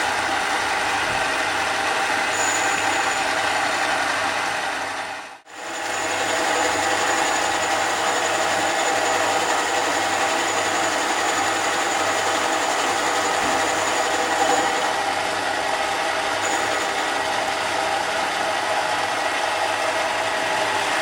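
Mini lathe running steadily with the whine of its motor and gears. The sound drops out for a moment about five seconds in, then picks up again.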